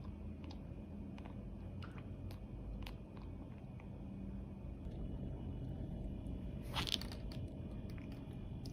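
A dog chewing and crunching, with small crunches throughout and one louder crunch about seven seconds in.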